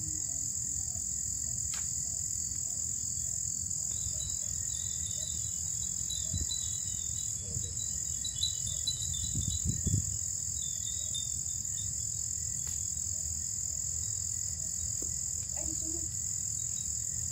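Steady high-pitched insect chorus, with faint chirps over it and a few dull low thumps near the middle.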